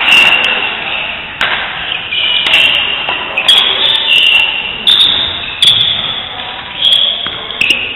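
Badminton doubles rally: sharp racket strikes on the shuttlecock about once a second, each followed by a brief high ringing, echoing in a large hall.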